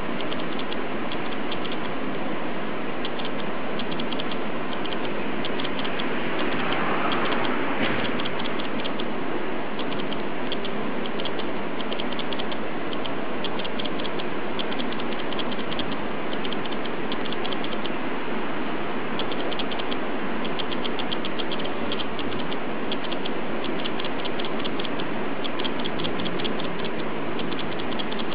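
A small mechanism running steadily, with a fast, uneven ticking over a constant whir.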